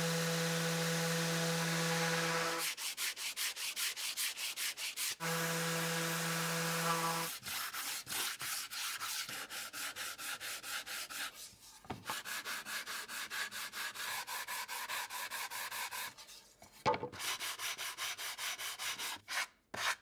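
Festool random orbital sander on walnut: a steady hum in two short runs over the first seven seconds. Then hand sanding with a sanding block, quick, even back-and-forth strokes rasping on the wood.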